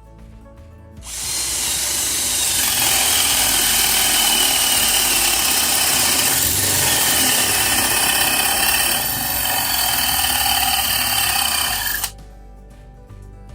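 Hamilton Ultimate cordless drill running with a steady whine for about eleven seconds, loud, starting about a second in and cutting off sharply near the end.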